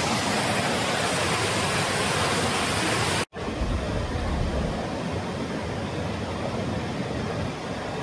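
Water cascading over rocks in a small waterfall, a steady full rush. It breaks off abruptly about three seconds in, then gives way to a mountain river's rapids rushing, a little softer and deeper.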